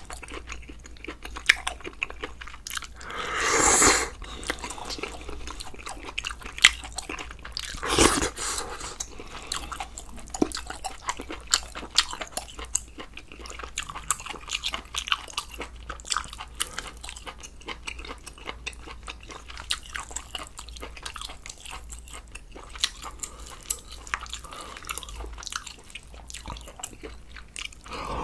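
Close-miked eating sounds: chewing and small wet clicks of mouth and utensils as ramen noodles and broth from a spicy sundae-gopchang hotpot are eaten. Two louder slurps stand out, one swelling over about a second around three to four seconds in, a shorter one around eight seconds in.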